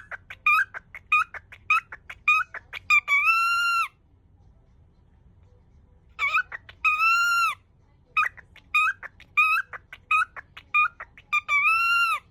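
Cockatiel chattering in quick, choppy syllables, its attempt at mimicking the phrase 'yoku kita ne' (glad you came), rushed and never finished. Each run of syllables ends in a long whistled note; there are three runs, with a pause of about two seconds after the first.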